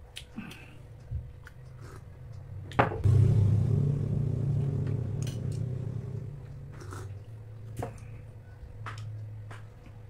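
Eating at a table: scattered clicks of cutlery on dishes. About three seconds in, a loud knock is followed by a low rumble that swells and fades over a few seconds.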